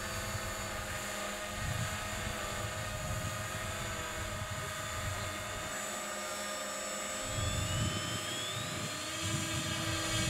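Electric motor and propeller of a radio-control model aeroplane whining steadily, its pitch climbing in the last few seconds.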